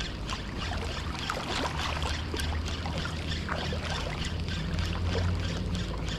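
Small waves lapping and trickling at the shoreline, with many small irregular splashes and a low steady rumble underneath.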